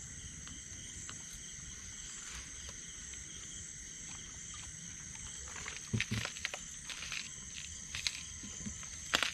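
Steady high-pitched chirring of night insects such as crickets, with a few short sharp noises around six seconds in and again near the end.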